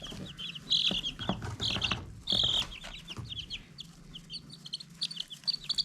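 Two-week-old Blue Star chicks peeping: many short, high chirps overlapping, with a few soft knocks among them.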